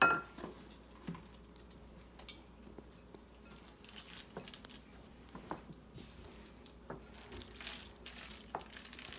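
Wooden spoon stirring a thick mixture of cooked macaroni and cheese, egg and flour in a glass bowl: soft squishing and scraping with scattered light knocks of the spoon against the bowl. A sharp knock right at the start.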